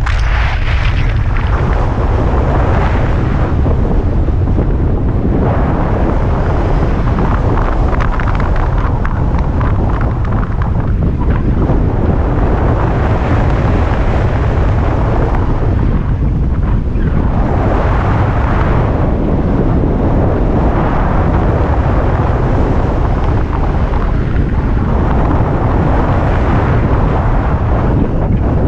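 Heavy wind rushing over the camera microphone from the airflow of a speed-flying descent, loud and steady with swells every few seconds.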